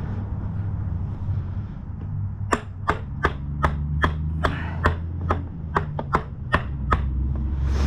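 About a dozen sharp mallet taps in quick succession, two or three a second, driving a motorcycle's rear axle through the swingarm and caliper bracket. They run over a steady low hum.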